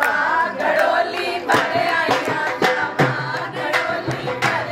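A group of women singing a wedding folk song together, with hand clapping and drum beats keeping a steady beat under the voices.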